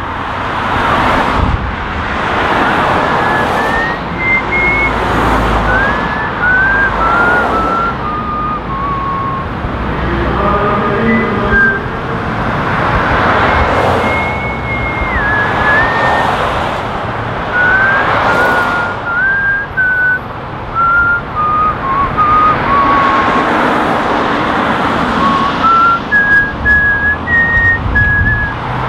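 Cars passing one after another on a city street, each one swelling and fading, while a person whistles a tune of separate held notes over the traffic.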